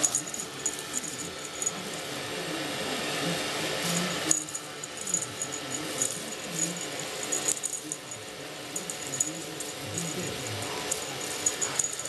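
Metallic tinsel streamers of a cat wand toy rustling and crinkling as the toy is swished and batted at, with light, irregular ticks and jingles.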